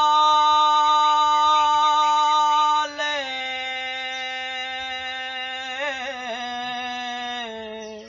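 A man singing an unaccompanied devotional Urdu song (manqabat), drawing out one long held note. About three seconds in his voice steps down to a lower, softer note, which he holds with a brief wavering ornament before it fades near the end.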